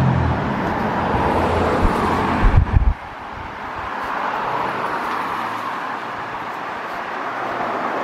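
Outdoor road traffic noise: a dense, steady rush with a few low thumps, dropping abruptly to a quieter steady rush about three seconds in.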